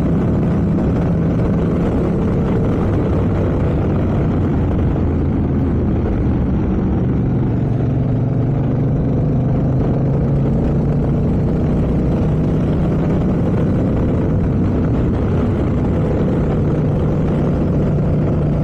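Motorcycle engine running at road speed, with wind rushing over the microphone; the engine note shifts a little a couple of times as the speed changes.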